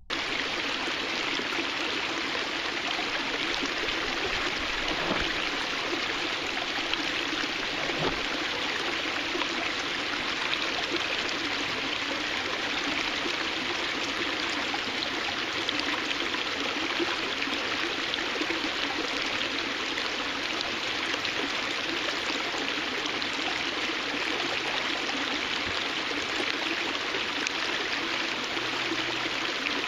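Water cascading over rocks: a steady, even rushing and splashing of falling water.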